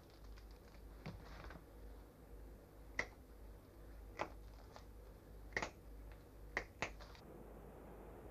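Hand clippers snipping through a red fox's toes at the front toe joint: a series of about six sharp separate clicks over a few seconds, the loudest about three seconds in.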